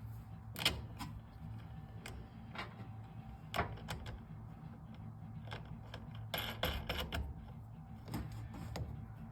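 Scattered sharp metallic clicks and taps of battery terminal hardware and wing nuts being handled and fitted, with a cluster of quick clicks a little past halfway, over a steady low hum.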